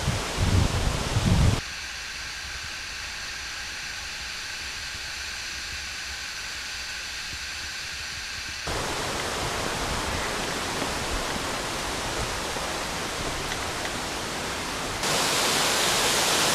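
Steady rush of a waterfall, its loudness and tone changing abruptly about 2, 9 and 15 seconds in; low thumps in the first second and a half.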